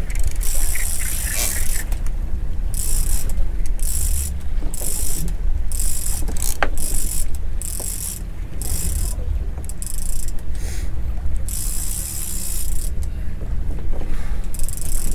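Big-game fishing reels giving line against the drag in repeated high-pitched ratcheting bursts, each lasting from a fraction of a second to about a second, as hooked bluefin tuna pull line off. Under it runs a steady low rumble.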